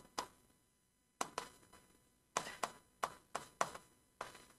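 Pen tapping and clicking on the glass of an interactive touchscreen whiteboard while writing: about ten sharp, irregular taps.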